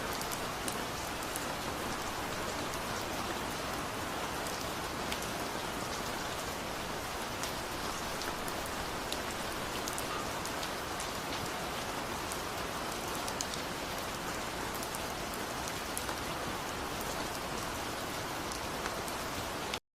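Waterfall: steady rushing water with scattered sharp droplet splashes. It cuts off suddenly near the end.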